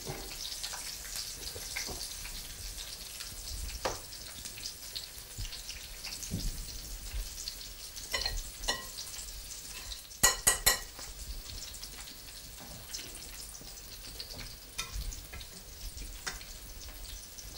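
Courgette-flower fritters frying in hot oil in a pan: a steady sizzling hiss with scattered small crackles. About ten seconds in comes a quick run of sharp clicks, the loudest sound here.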